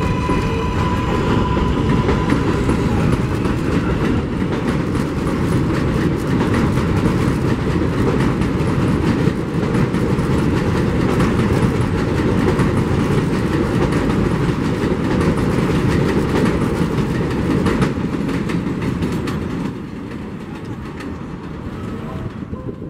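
New York City Subway 7 train running along the elevated steel structure and pulling away from the station: a steady, loud noise of wheels on rails that drops somewhat about three seconds before the end as the last cars move off.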